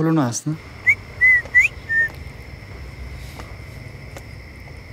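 Someone whistling four short, quick notes that slide upward, like a signal call. Behind it runs a steady high drone of night insects.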